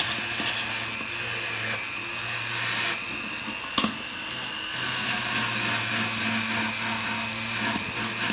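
Pendant drill (flex-shaft rotary tool) running steadily with a 21 mm white nylon wheel brush spinning against a metal ingot pendant, buffing around its jump ring and top loop; a steady high whine over a low hum, with one brief click about four seconds in.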